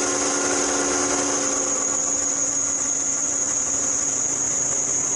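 Car engine running with a steady, high-pitched, piercing squeal from its drive belt. This is the kind of belt squeal that warns a worn belt is nearing failure.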